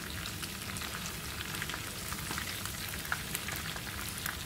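Croaker fish pieces shallow-frying in hot oil in a nonstick pan, nearly done: a steady sizzle dotted with many fine crackles and pops.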